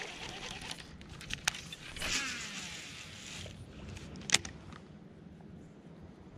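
Baitcasting reel on a cast: a brief whir of the spool paying out line about two seconds in, with a few sharp clicks of the reel being handled, the loudest a little over four seconds in.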